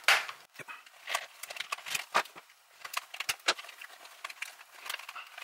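Plastic snap fasteners on the thin plastic ring sewn into a Furby's fur skin popping apart as the skin is pulled off the toy's plastic shell: a string of sharp clicks, the loudest right at the start, with the fur rustling in between.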